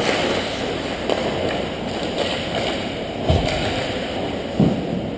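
Ice hockey game ambience in an echoing indoor rink: skates scraping the ice and play at the far end, with two dull thumps, one about three seconds in and one near four and a half seconds.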